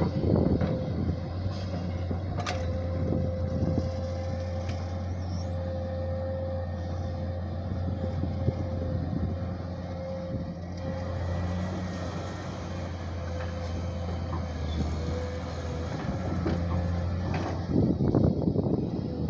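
A JCB digging machine's diesel engine runs steadily under a steady whine, with a few knocks in the first few seconds. It gets louder and rougher for the last two seconds or so.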